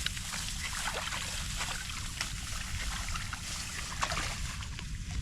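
Heavy rain falling, with many irregular drips and small splashes of water over a steady low rumble.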